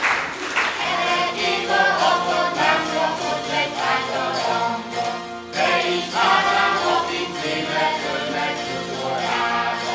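A short burst of applause dies away in the first second, then an ensemble of Hungarian citeras (board zithers) is strummed together, playing a folk tune.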